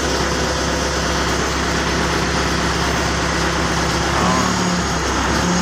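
Perkins diesel engine idling steadily.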